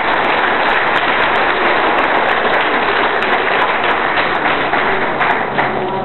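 Audience applauding, a dense run of clapping that eases off near the end.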